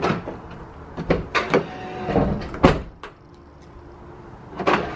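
Toyota Tacoma door lock and latch being tested after replacing the lock cylinder: a series of mechanical clicks and clunks from the key, lock and handle, the loudest a sharp clack about two and a half seconds in.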